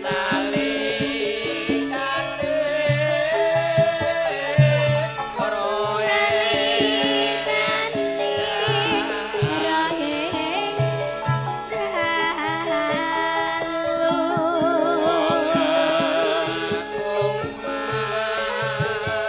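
Javanese gending played on gamelan: steady ringing tones over repeated low drum strokes, with a singing voice wavering above.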